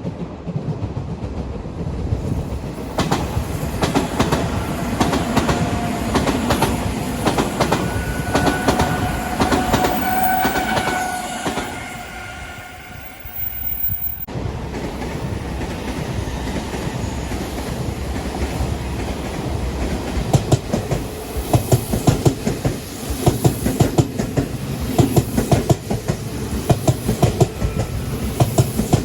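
Odakyu Line electric trains passing close by. The first train runs with a rising whine and fades, then the sound cuts off abruptly about halfway. A second train's wheels clatter rhythmically over the rail joints from about two-thirds of the way in.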